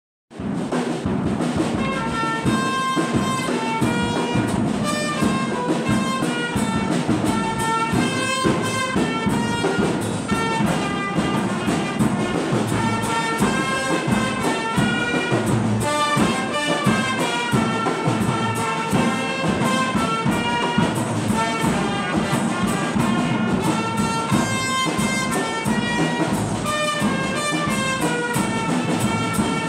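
Music with a brass-like melody over a steady percussion beat, starting just after the opening instant and running without a break.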